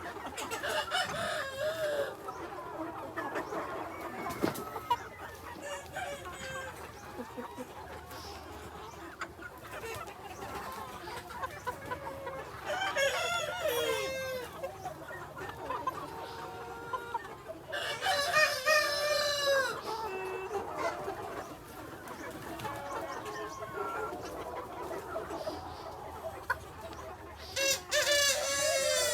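Free-range chickens clucking steadily, with a rooster crowing several times; the loudest crows come around the middle and near the end.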